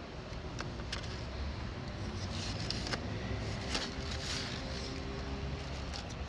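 Steady low outdoor background rumble with a few light clicks and short rustles of paper napkins and a paper food bag being handled, the rustles clustered around the middle.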